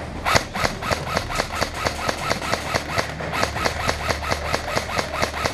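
APS ASR-110 airsoft electric rifle firing a rapid, even string of shots, about six a second, with a sharp click for each BB.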